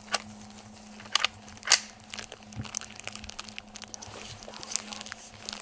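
Handling noise from a scoped rifle and its sling on dry forest litter: three sharp snaps within the first two seconds, the last the loudest, then lighter scattered crackles and rustling.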